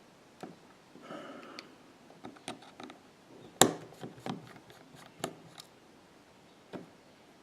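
Small tools clicking and tapping on an iPhone 6's metal parts as tiny screws are worked out with a precision screwdriver: scattered light clicks, the sharpest about three and a half seconds in.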